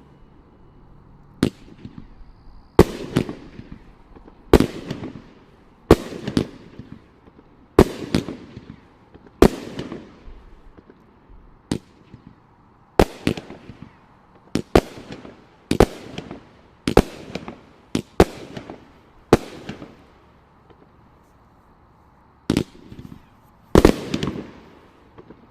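A 44-shot, 500-gram consumer firework cake firing: about two dozen sharp bangs at irregular intervals of roughly a second, some in quick pairs, each followed by a fading tail from the breaking effects.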